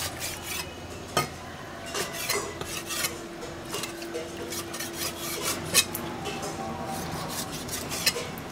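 Chinese cleaver slicing raw pork belly on a wooden chopping board, the blade knocking against the board in irregular strokes.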